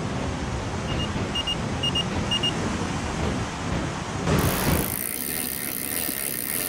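Sea surf breaking on the shore, a steady rushing noise. Four pairs of short, high chirps come between about one and two and a half seconds in, and a brighter hiss joins about four seconds in.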